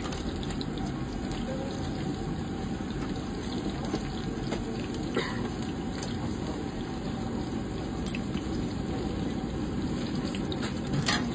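Gorditas frying in a pot of hot oil: a steady sizzle and rush, with a few light clicks of utensils against the pots and plates.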